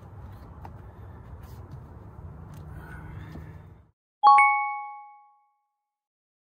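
Low background hiss with a few faint clicks, which cuts out abruptly; a moment later a single loud bell-like ding rings and fades over about a second.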